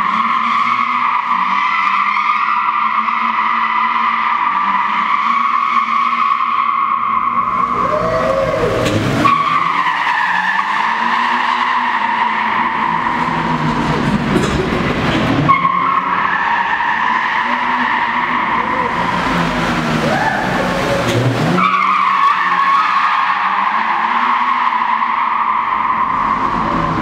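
A car drifting in an underground parking garage: its tyres squeal in long, steady screeches. Three times the engine revs climb and fall, and each time the squeal breaks off and starts again as the car changes direction.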